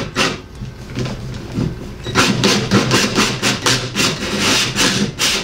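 Cordless drill driving a 4-inch hole saw up through ceiling drywall: a rough, pulsing grinding rasp as the saw bites. The cut gets louder about two seconds in.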